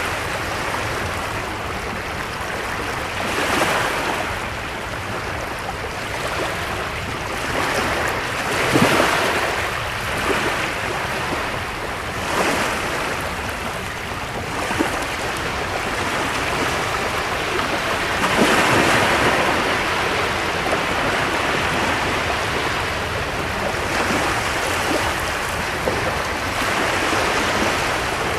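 Small waves washing in on a shore: a continuous wash of surf that swells every few seconds as each wave breaks.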